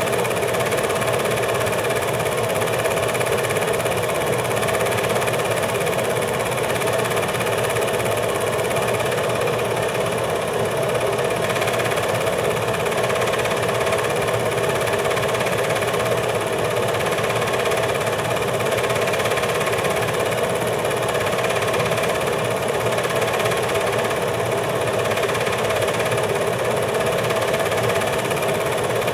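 Steady machine running noise with a constant hum, unchanging in level throughout.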